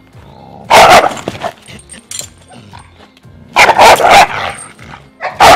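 Young female dog with an aggression problem barking hard in three loud bursts while straining and lunging on a leash.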